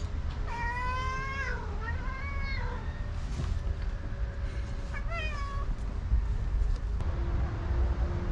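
Domestic cat meowing twice: a long drawn-out meow that falls and then rises again, starting about half a second in, and a shorter meow about five seconds in, over a steady low rumble.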